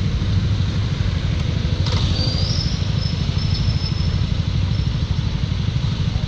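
Motor scooter riding along at steady speed: a steady engine and road rumble with heavy wind buffeting on the microphone.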